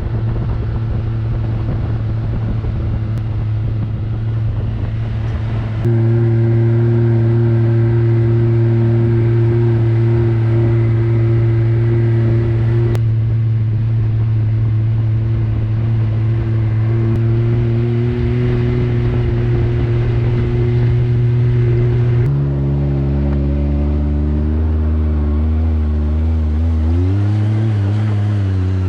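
Side-by-side UTV engine running at a steady cruising speed, its note holding even for most of the stretch, then wavering up and down in pitch over the last few seconds as the speed changes.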